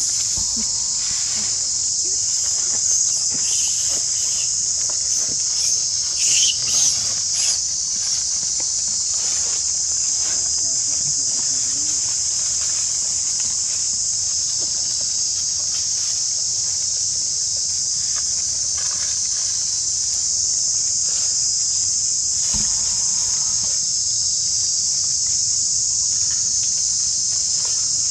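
Steady, high-pitched drone of an insect chorus. A few short calls break in between about three and eight seconds in.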